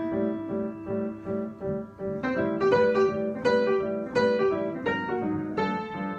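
Solo instrumental improvisation: a steady run of plucked or struck notes, a few each second, each one ringing and fading.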